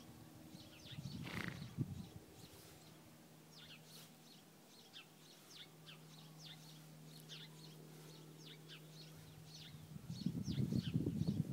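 Small birds chirping in a bamboo stand: many short, high notes, each sliding quickly downward, scattered over several birds. A faint steady low hum runs under the middle, and a louder low noise comes in near the end.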